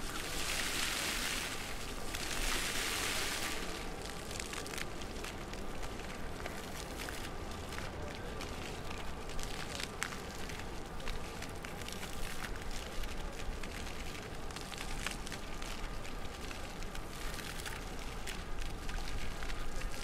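Floor fountain jets splashing onto wet paving. A dense hiss drops away about three and a half seconds in as the jets fall low, leaving lighter splashing with scattered drips.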